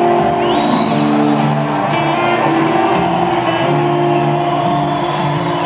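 Live rock band playing an instrumental passage with held electric guitar chords over drums. A high whistle rises briefly about half a second in.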